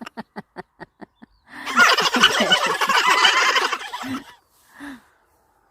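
Turkeys gobbling: a quick stuttering run of short calls, then a loud, longer gobbling burst of about three seconds, and a couple of short calls near the end.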